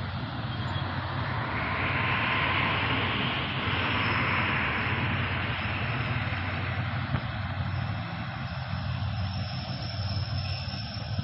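An engine running steadily with a low drone, a broad rushing swell building and fading over a few seconds near the start, and a faint high steady whine later on.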